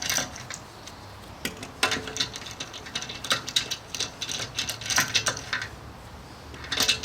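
Scattered metallic clicks and clinks in short clusters every second or so as lug nuts are unscrewed from a car wheel and handled.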